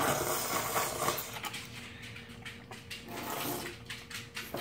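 Slurping of udon noodles, one long slurp in the first second and a half and another around three seconds in, with small wet clicks and smacks of chewing between.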